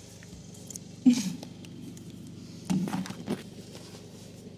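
Handling noise from a camera phone being moved and set down: a sharp bump about a second in, then a cluster of knocks and rustles around three seconds in.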